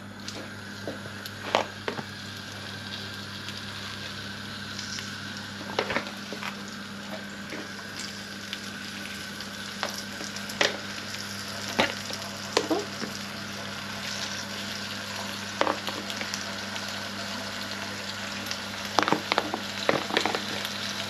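Skinless bone-in chicken thighs sizzling steadily as they are laid into a hot pan with a little spray oil to brown, the sizzle growing slightly louder toward the end as more pieces go in. Sharp clicks of metal tongs against the pan come every few seconds, several in quick succession near the end.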